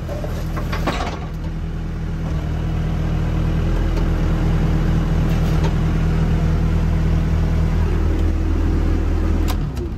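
Yanmar ViO80 excavator's diesel engine running at idle. It grows louder about two to three seconds in, as the hydraulics lift the machine, holds steady, then drops back near the end.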